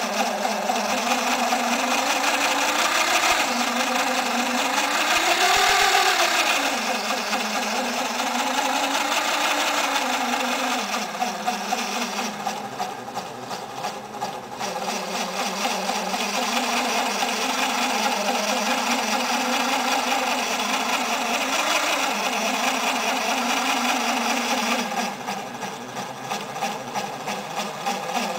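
Small electric motor driving a homemade crawler-tractor model, running steadily under load as its tracks climb onto a step; its whine rises and falls in pitch a few times early on, and it goes quieter twice, briefly about halfway through and again near the end.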